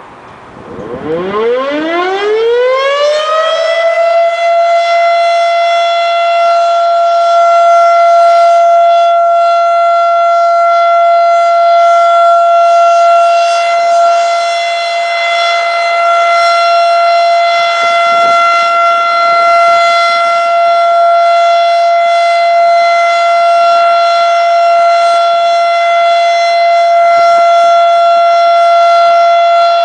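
Federal Signal RSH-10A Thunderbeam outdoor warning siren winding up about a second in, climbing to a steady high tone within a few seconds and holding it: a steady alert signal sounded for a scheduled monthly test.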